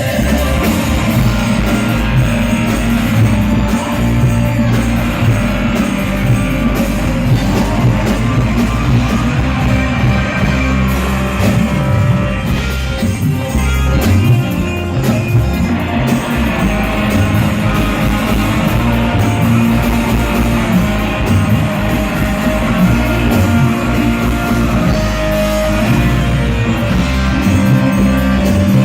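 Loud music with singing and heavy bass, played through a large sound system during a sound check.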